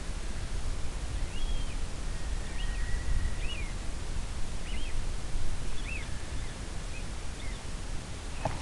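Lucky Duck electronic predator caller playing a rodent distress sound ('stinky rat'): short, high squeaks about once a second, over a steady low rumble.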